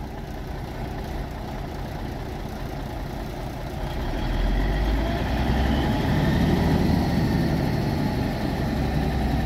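1978 Autocar truck's 400 Cummins diesel engine running at idle while the air system builds pressure to release the brakes; it gets louder about four seconds in and stays louder.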